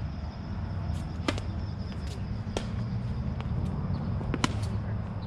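Tennis ball being hit with rackets and bouncing on a hard court during a rally: a string of sharp pocks, the loudest about a second in and again about four and a half seconds in, when the near player swings. A steady low rumble runs underneath.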